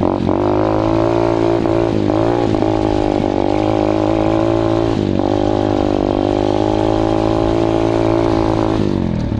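KXD 125cc pit bike's single-cylinder four-stroke engine running under way on a ride. The revs dip and pick up again several times, around two and five seconds in and again near the end.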